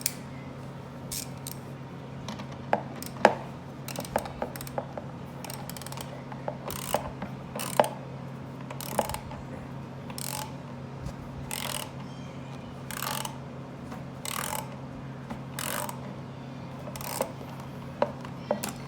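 3/8-inch Pittsburgh ratchet wrench working in short strokes, a brief burst of ratchet clicks about every second and a quarter, as bolts on a loose chair are tightened. A few separate sharp clicks and knocks come in the first few seconds.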